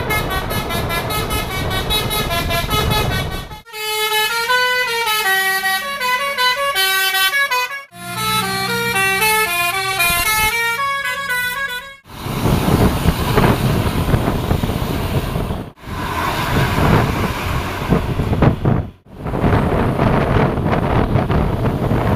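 Tour bus 'telolet basuri' musical air horn playing a tune of stepping notes in two short phrases, after a few seconds of horn sounding over the bus's running. It is followed by several seconds of loud, rushing noise from the bus, cut into short clips.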